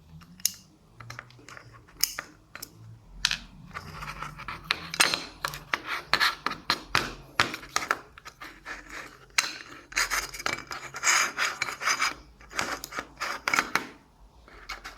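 Small metal tools and parts being handled: a run of sharp clicks, taps and scraping, busiest through the middle.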